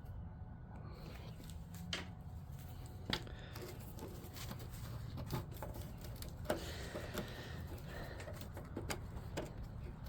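Scattered faint clicks and scrapes of a metal pick tool working around a rusted steel sleeve seized in a rubber mount, with rust flakes packed between sleeve and rubber.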